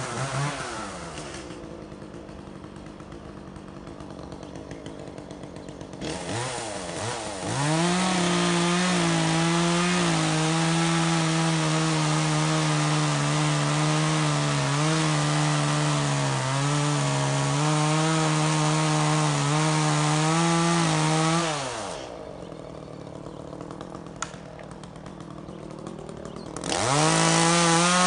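Two-stroke chainsaw dropping to idle, then revving up about six seconds in and cutting wood at full throttle for roughly fourteen seconds, its pitch sagging a little under load. It falls back to idle, then revs up again near the end.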